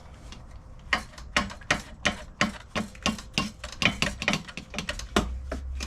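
A quick run of sharp metallic clicks and knocks, about three a second, starting about a second in: tool and metal contact while taking the exhaust pipe off a two-stroke dirt bike. A low hum comes up near the end.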